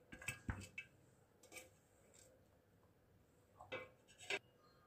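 Near silence with a few faint, short clicks and taps of handling at a steel plate of soaked sago pearls: a small cluster in the first second and two more near the end.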